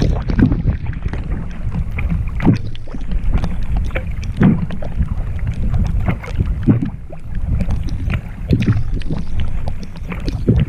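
Canoe paddle strokes in lake water, a splash about every two seconds, over steady wind buffeting the microphone.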